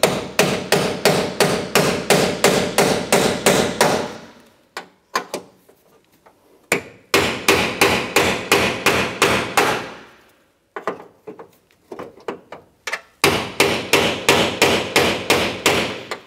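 Hammer blows on a cold chisel cutting the steel rivets that hold a window regulator inside a Ford F-150 door, snapping the rivet heads off. The blows come in quick runs of about four or five a second, with short pauses and a few lighter taps between the runs.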